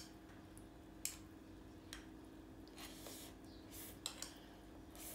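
Faint eating sounds: chopsticks clicking against a small ceramic bowl and a few short slurps as noodle salad is sucked in, over a faint steady hum.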